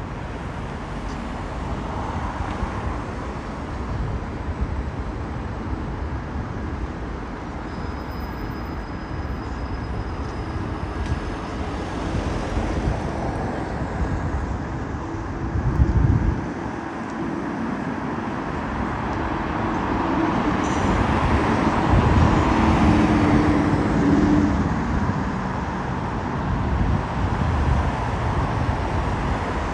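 City-centre road traffic: a steady hum of vehicles driving past, with a short low rumble about halfway through and a vehicle engine growing louder and passing close a few seconds later.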